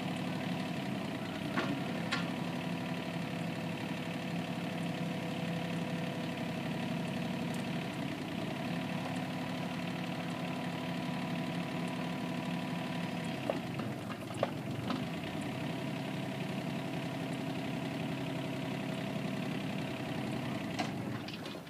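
Nissan N230 mini excavator's three-cylinder diesel engine running steadily while the boom, arm and bucket are worked hydraulically, its note dipping a little under load a couple of times. A few short clicks and clunks are heard, and the engine sound drops away right at the end.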